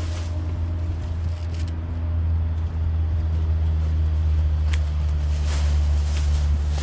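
An engine running steadily with a low, even hum that grows a little louder after about two seconds, with a few short scrapes over it.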